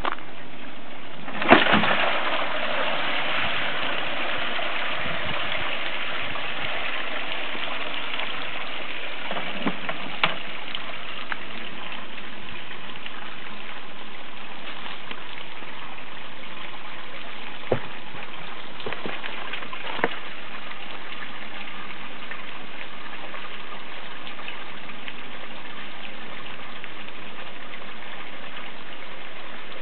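Steady rush of flowing water, with a sharp knock about a second and a half in and a few faint clicks later.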